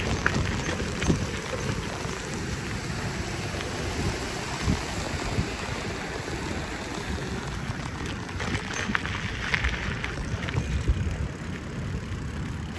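Ride noise from a camera mounted on a moving bicycle: wind buffeting the microphone and tyres rolling over the path, with scattered small clicks and rattles from the bike.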